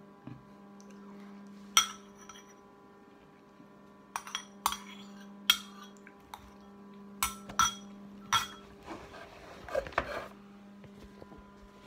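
Metal spoon clinking and scraping against a ceramic bowl: about ten sharp, irregular clinks as the last of the custard is scooped out. A steady low hum runs underneath.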